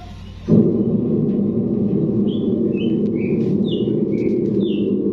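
Large truck-mounted sound-system speaker stack starting up suddenly about half a second in, then putting out a steady, loud low-to-mid noise as a sound-check signal. Short high chirps sound over it from about two seconds in.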